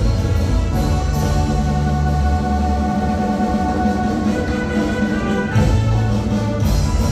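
Banda-style band music playing: held melody notes over a bass line that moves every second or two.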